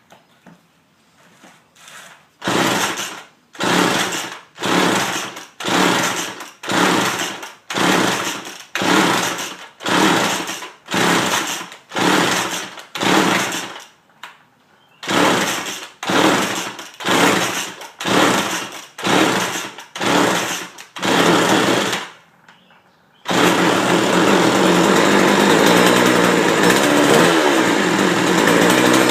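McCulloch 3214 two-stroke chainsaw being cold-started. Faint clicks come first as the primer is pressed, then the recoil starter is pulled about once a second in two runs of pulls with a short pause between them. The engine catches a little over 20 seconds in and runs steadily.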